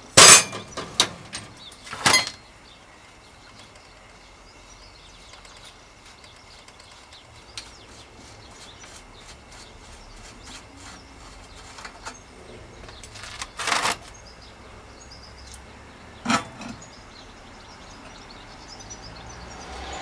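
Handling of bicycle parts after fork removal: a few sharp metal knocks and clinks, the loudest right at the start and about two seconds in, two more in the second half, with small ticks and rattles between.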